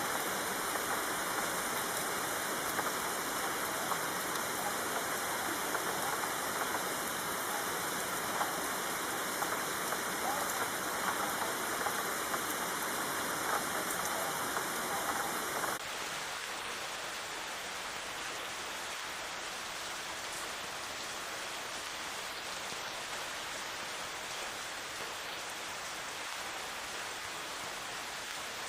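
Steady rain falling. About sixteen seconds in, it switches abruptly to a quieter, softer rain.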